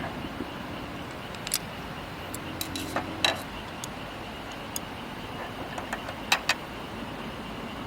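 Cookware and utensils clicking and clinking in short sharp knocks, loudest about three seconds in and again near six and a half seconds, over a steady even hiss.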